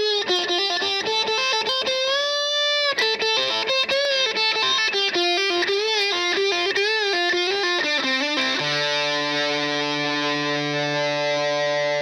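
Intro music: a distorted electric guitar plays a fast lead line with string bends and vibrato, then strikes a long held chord about two-thirds of the way through and lets it ring.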